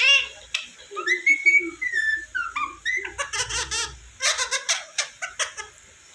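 Indian ringneck parrot whistling and chattering: a whistled note that rises and falls about a second in, then a quick run of harsh chattering notes.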